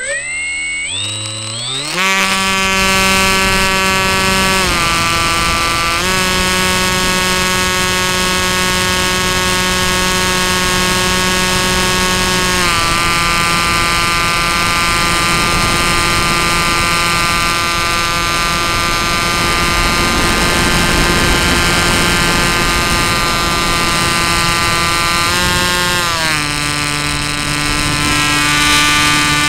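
A Bixler 2 RC plane's electric motor and propeller spool up quickly from a standstill for launch. They then run at high throttle as a steady whine, dipping in pitch briefly a few times as the throttle eases. Near the end the whine drops to a lower steady pitch. The sound is picked up by a camera mounted on the airframe.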